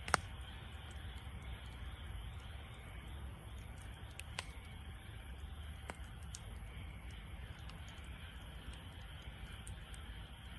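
Wood fire burning in a Snow Peak Takibidai steel fire stand, popping and crackling now and then over a steady low rumble; the sharpest pop comes right at the start, with smaller ones about four and six seconds in.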